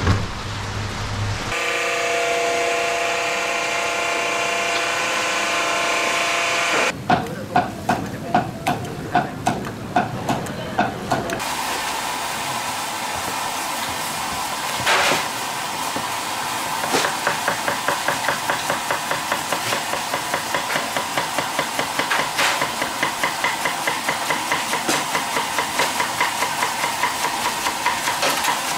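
A kitchen knife shredding a cabbage on a chopping board, in quick, even strokes that run on for the last ten seconds or so. Before that come about eight heavy blows, roughly two a second.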